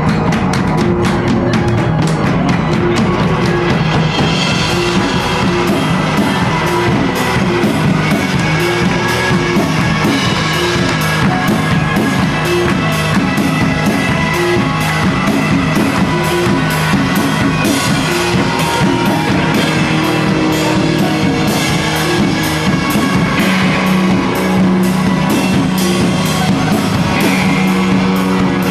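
Live band playing loud rock music, a drum kit keeping a fast, steady beat under guitar and sustained tones.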